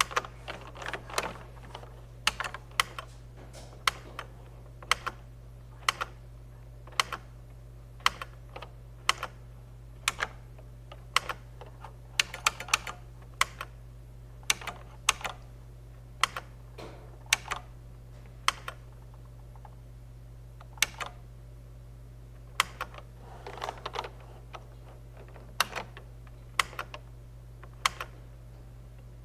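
Computer keyboard keys pressed one at a time to step through installer menus: single sharp clacks about once a second, with a few quick runs of several keystrokes, over a steady low hum.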